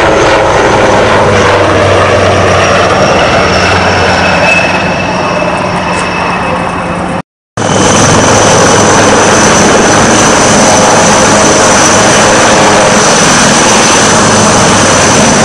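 HAL Rudra army helicopter's turbine engines and rotor running loud and steady, with a high turbine whine. The sound cuts out for a moment about seven seconds in, then comes straight back.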